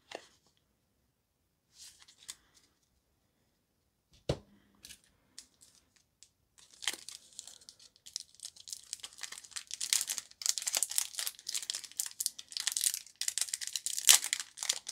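A few faint clicks and one sharp knock about four seconds in, then from about halfway through, the foil wrapper of a Pokémon booster pack crinkling and tearing as it is pulled open.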